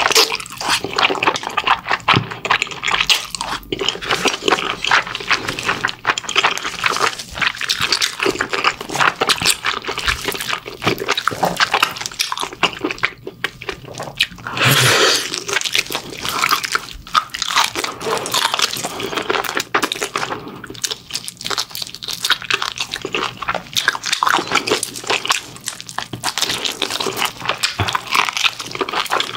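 A person eating close to the microphone: continuous wet chewing and smacking of mala-sauced pig's trotters and wide glass noodles, with crunchy bites mixed in.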